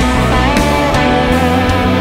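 Rock song playing at full band, with guitar in the lead.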